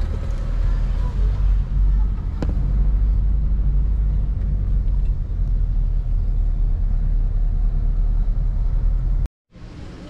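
Car on the move, heard from inside: a loud, steady low rumble of road and engine noise. It cuts off abruptly near the end, giving way to a much quieter sound.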